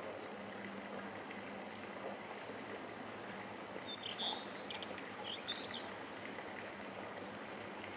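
A bird chirping in a quick series of short calls about four to five and a half seconds in, over a steady outdoor hiss.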